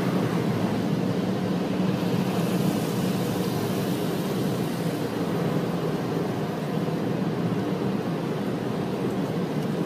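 Car wash equipment running: a steady hum with a rushing noise over it.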